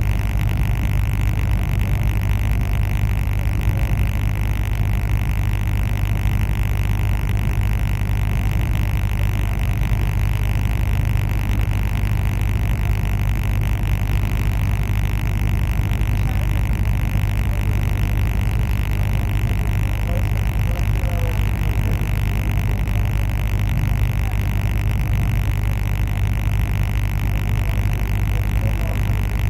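Steady running noise of a train: a deep, unchanging hum with a hiss over it.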